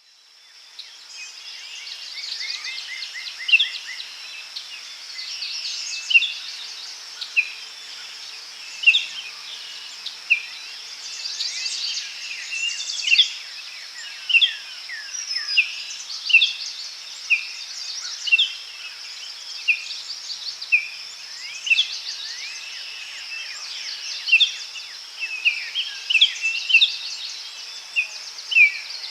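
Forest ambience: many birds chirping and calling in short, repeated phrases over a steady high-pitched insect drone, fading in over the first couple of seconds.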